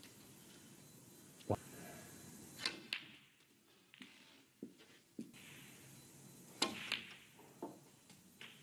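Snooker balls clicking: sharp, separate clicks of the cue tip striking the cue ball and the balls colliding during a break in which the black is potted.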